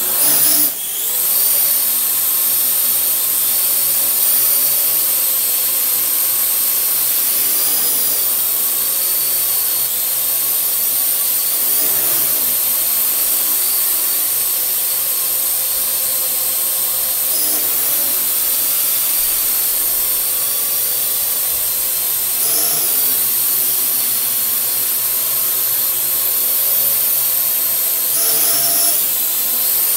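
Parrot AR.Drone quadrotor's four electric motors and propellers whirring as it lifts off in the first second and then hovers steadily. The pitch wavers briefly several times as the motors correct for the drone being pushed off its station.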